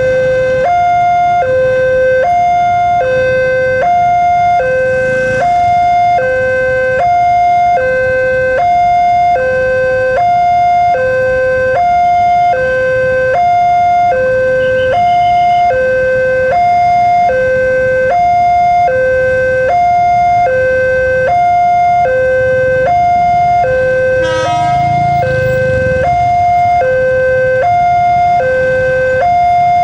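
Railway level-crossing warning alarm sounding a steady two-tone electronic chime, a high and a low tone alternating evenly at about one pair every 1.2 seconds. The alarm signals that the barrier is down for an approaching train.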